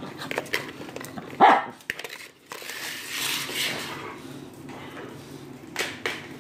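A dog barks once about a second and a half in, followed by a rustling noise and two sharp knocks near the end.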